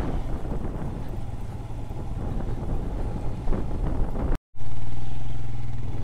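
Motorcycle engine running steadily while being ridden, with a rattly hum. The sound cuts out for an instant about four seconds in, then the engine comes back louder.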